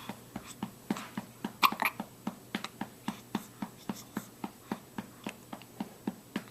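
A bout of hiccups: short, sharp catches repeating steadily at about three a second, with a louder pair a little under two seconds in.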